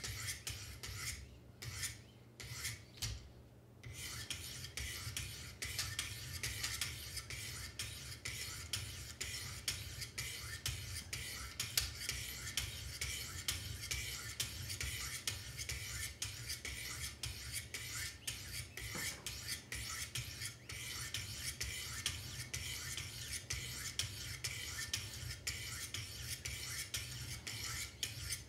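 Diamond sharpening stones on a Wicked Edge guided-rod sharpener rasping along a Benchmade knife's steel edge in quick, repeated strokes, worked alternately on both sides of the blade, with a short lull about a second in.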